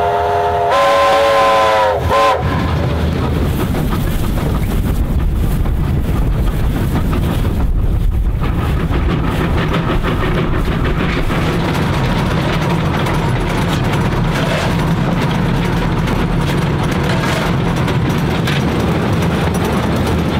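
Steam whistle of NZR Ww class 4-6-4T tank locomotive Ww 480, a chord of several notes, breaks off for a moment and then sounds again. It closes with a drop in pitch about two seconds in. After it comes a steady noise of the train running.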